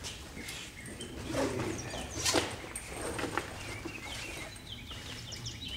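Rustling and handling of a nylon gym bag as things are pulled out of it, with a few short noisy rustles and many brief, high chirp-like squeaks.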